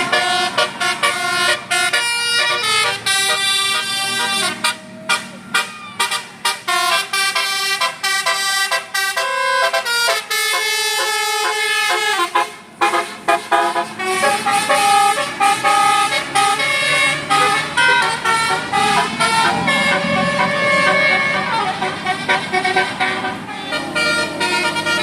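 Bus telolet horns, a multi-tone musical horn set, playing tunes: first a run of rapid short blasts on changing notes, then from about halfway longer held chords with some notes sliding in pitch. A low engine rumble runs under the second half.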